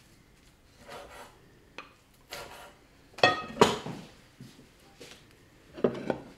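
Ceramic plates and bowls and a metal spoon clinking and knocking as food is plated, a few separate clatters, loudest just after three seconds in and again near the end.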